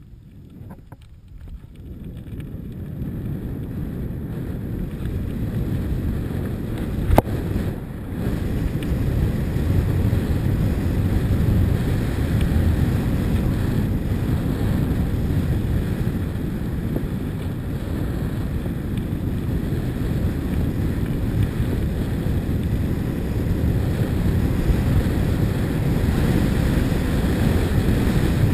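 Wind buffeting the microphone of a camera moving quickly along a gravel track: a low, steady rumble that builds over the first four seconds, with one sharp knock about seven seconds in.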